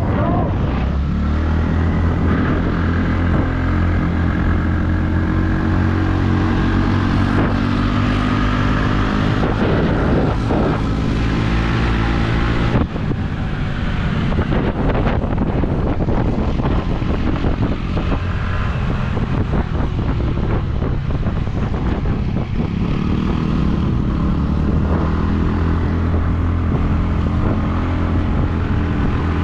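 A vehicle's engine running continuously while under way, its pitch shifting slightly, with wind noise on the microphone.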